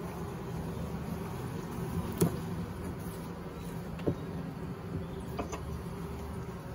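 Honeybee colony buzzing steadily in an open horizontal long hive, with a few short knocks from the wooden frames being handled, the sharpest about two seconds in.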